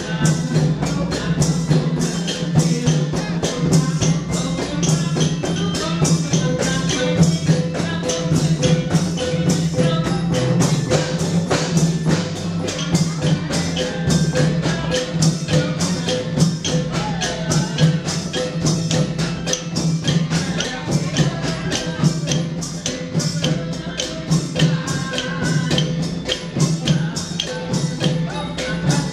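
Thai klong yao long-drum ensemble playing a fast, steady dance rhythm: long drums beating under an even run of sharp metallic cymbal strikes, several a second.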